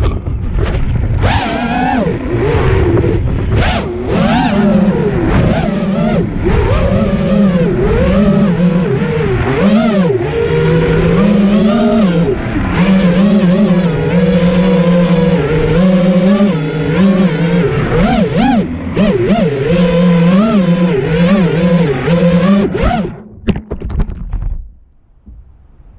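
FPV racing quad's four Bold Clash 2306 2700kv brushless motors and propellers whining, the pitch swooping up and down with every throttle change as it flies and flips. The whine cuts out near the end.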